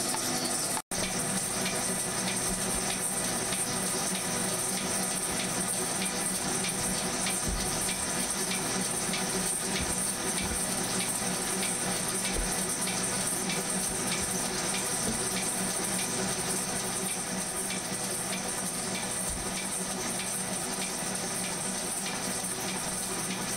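Machine tool cutting steel: a steady hiss with faint, evenly spaced ticks.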